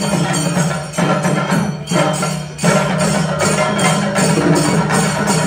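Music with a percussive beat, with a short break about a second in and another just after two seconds.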